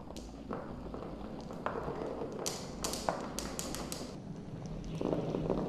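Glass marbles rolling along a marble run track, a steady rumble broken by sharp clicks, with a quick run of about half a dozen clicks in the middle and the rolling growing louder near the end.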